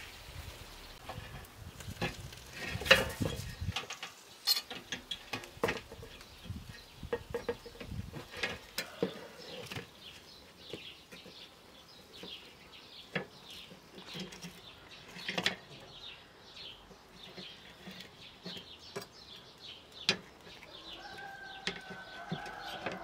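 Scattered metallic clinks and knocks of a wire grill basket and cooking utensils as grilled fish is handled, the loudest about three seconds in, with birds chirping in the background.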